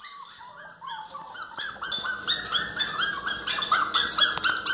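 Miniature pinscher puppy whining and crying in quick short high cries, about three or four a second, faint at first and louder from about a second and a half in: crying to be let into the house.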